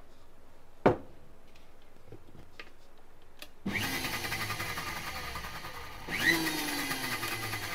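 Sujata mixer grinder's motor whirring in short pulses, blending oil into egg to re-emulsify a split mayonnaise: it switches on about three and a half seconds in, cuts out briefly about two and a half seconds later and starts again. A single sharp knock comes about a second in.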